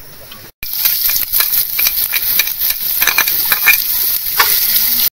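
Food sizzling in a hot pan while it is stirred, with many quick clicks and scrapes of the utensil against the pan. It starts suddenly about half a second in, after a brief break.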